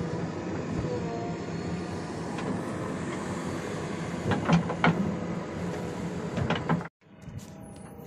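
JCB 3DX backhoe loader's diesel engine running under load, with a shifting whine as the backhoe arm and bucket swing. Several sharp knocks come around the middle and again just before the sound cuts off suddenly about seven seconds in, after which the machine is heard more quietly.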